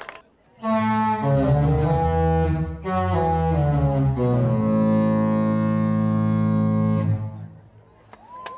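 Disney Magic cruise ship's single musical horn playing a short melody in low notes that step in pitch, with a brief break a couple of seconds in, then one long held note that cuts off about seven seconds in.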